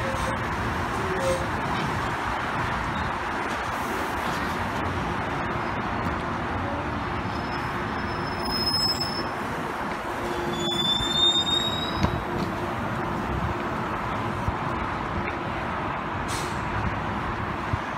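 GO Transit bilevel passenger coaches rolling past on the rails and slowing to a stop, a steady rumble of wheels on track. A few brief high squeals come about halfway through.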